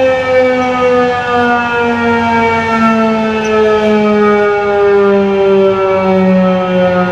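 Federal Signal 2001 SRNB rotating outdoor warning siren winding down, its single tone falling slowly and steadily in pitch as the rotor coasts to a stop at the end of the test signal.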